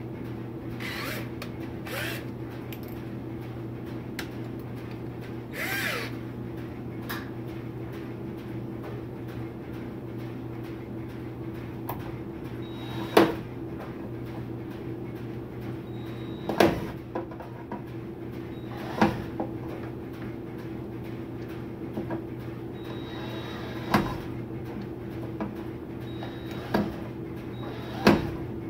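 Sharp metallic clicks and knocks from hands working on the furnace's parts, about six loud ones in the second half with softer scrapes earlier, over a steady low hum.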